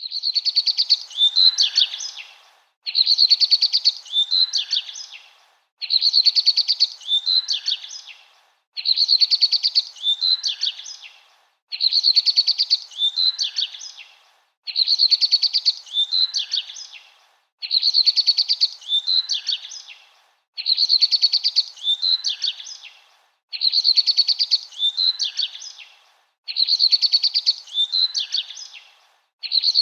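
Bird song: a short high chirping phrase, a fast trill followed by a few falling notes, repeated identically about every three seconds like a looped recording.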